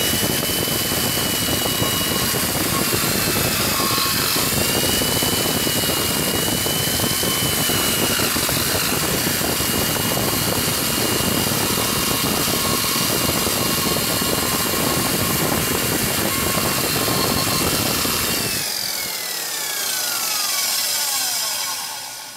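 A restored 1960s Milwaukee 5220 straight grinder with a 1-inch by 6-inch stone runs at full speed and grinds a steel bar, a steady high motor whine under the grinding noise; the stone has been leveled and cuts smoothly. Near the end the grinding stops and the motor coasts down with a falling whine.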